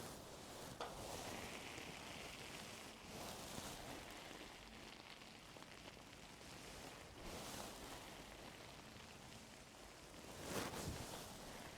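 Faint, close-up scratching and rustling of ear-cleaning tools working in an ear, in several soft swishes with a small click about a second in; the last swish, near the end, is the loudest.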